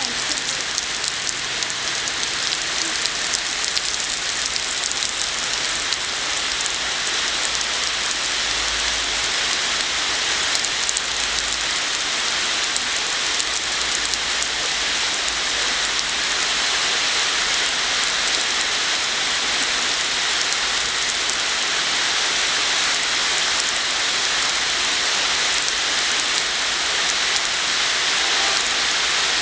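Tropical rain pouring steadily, a dense patter of drops that grows slightly louder toward the end.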